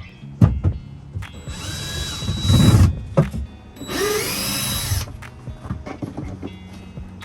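Power drill running in two short runs of about a second or so each, backing screws out of old camper cabinetry, with a few knocks and clunks between the runs.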